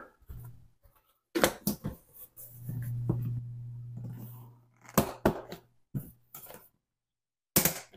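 A plastic lid being handled and fitted onto a collapsible plastic tub: a series of sharp plastic knocks and clicks, about a second and a half in and again near the end, with a low steady hum for about two seconds in the middle.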